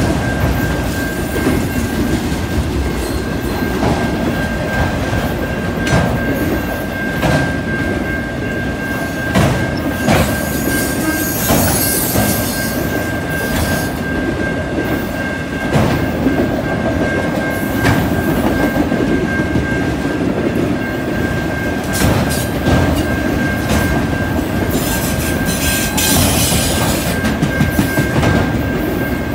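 Freight train of autorack cars rolling past at a grade crossing: a steady rumble of steel wheels on rail, with clicks every second or two as the wheels cross rail joints. A steady high ring from the crossing bell carries on throughout, and high-pitched wheel squeal comes in twice, around twelve and twenty-six seconds in.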